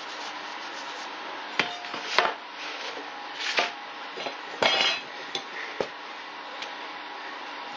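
Thin steel sheet-metal pieces being set down and handled on a workbench, making a handful of sharp clanks and clinks between about one and a half and six seconds in, over a steady faint hum.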